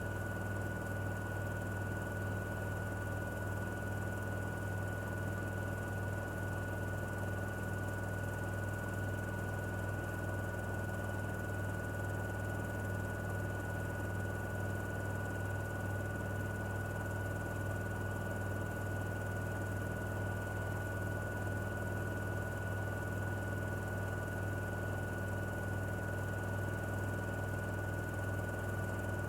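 Miele appliance running with a steady low hum and a constant high-pitched whine, the noise that the owner is recording it for.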